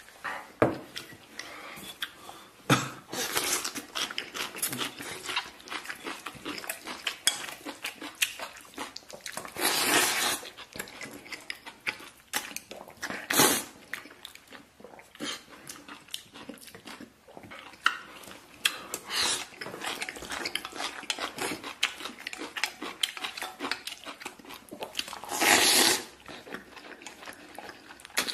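A person slurping and chewing tomato beef instant noodles, with clicks and scrapes of utensils on the bowl. A few long slurps stand out, one about ten seconds in and one near the end.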